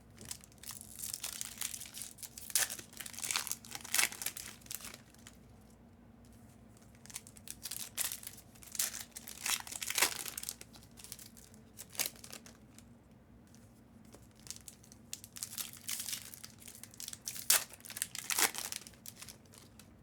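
Plastic packaging being handled, crinkling and rustling in irregular bursts.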